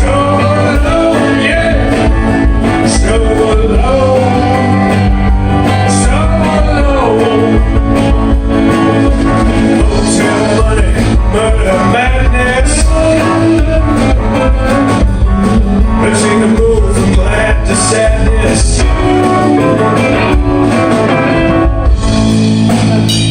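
Rock band playing live: electric guitar, bass and drums, with a singer holding and bending notes over the first several seconds.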